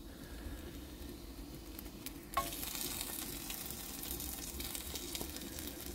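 Bacon fat sizzling in a frying pan. The sizzle is faint at first, then after a short metallic clink about two and a half seconds in it becomes a louder, steady fizzing.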